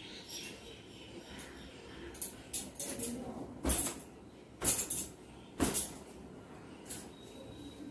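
A towel being worked through long wet hair: soft swishes, then three loud whacks of the towel against the hair about a second apart, and a lighter one near the end.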